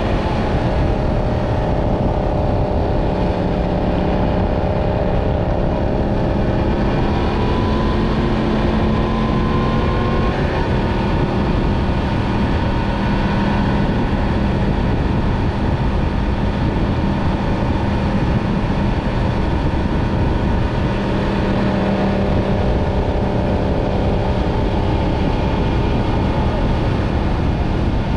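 Yamaha MT-10 motorcycle engine running at a steady cruise under a constant rush of wind noise. The engine note shifts about ten seconds in, then holds steady again.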